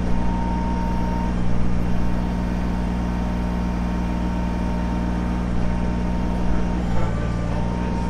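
Kubota BX23S compact tractor's three-cylinder diesel engine running steadily during backhoe digging. A thin high whine rides over it, stopping about a second in and returning near the end.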